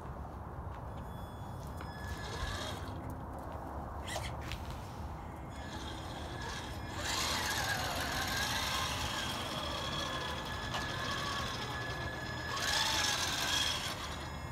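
Traxxas TRX-4 Sport RC crawler's electric motor and geartrain whining as it drives on concrete, in several spurts of throttle with the pitch rising and falling; the longest and loudest spurt comes in the middle.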